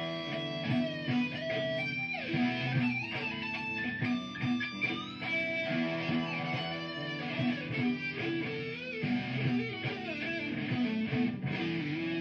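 Electric guitar improvising a lead line of single notes, some bent, over a looped guitar backing that repeats a steady low figure.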